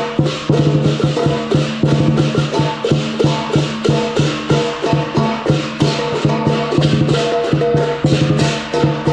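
Lion dance percussion: a big drum struck in a fast, busy rhythm with cymbals and gong crashing along.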